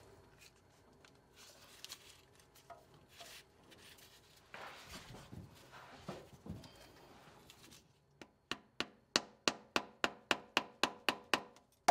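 Faint rubbing and handling, then, about eight seconds in, a quick run of sharp hammer taps at about four a second, driving a new rubber rear main seal into place over a crankshaft repair sleeve.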